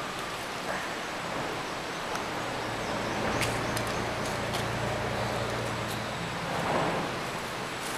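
Tent poles clicking a few times as their sections are handled and fitted, over a steady outdoor hiss. A low hum swells for a few seconds in the middle, and tent fabric rustles near the end.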